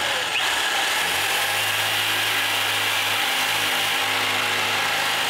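Ryobi corded jigsaw running steadily without a break, its blade cutting through the wooden base of a dresser.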